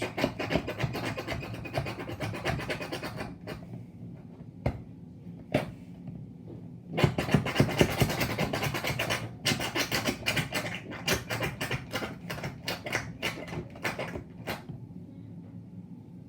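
Rapid scratchy clicking and scraping in two long stretches with a quieter gap between, from soap slime ingredients being worked in a bowl.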